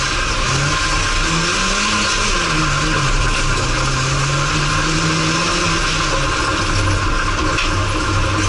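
Racing car engine heard from inside the cabin, under hard driving on a dirt track. Its pitch climbs and drops several times as the driver accelerates and lifts, over a steady rush of tyre and surface noise.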